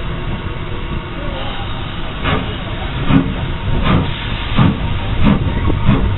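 Former LSWR Beattie 2-4-0 well tank steam locomotive 30587 pulling slowly away, its exhaust beats starting about two seconds in and coming roughly every two-thirds of a second over the steady rumble and hiss of the moving train.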